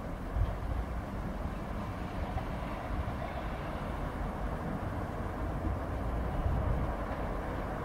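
Steady low outdoor background rumble with no train passing, uneven in the lowest range.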